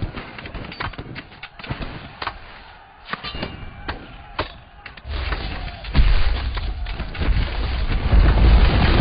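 Animated-film sound effects for a giant made of stacked rocks: scattered sharp stone knocks and clicks, then a deep rumble of heavy rock starting about five seconds in and growing louder toward the end.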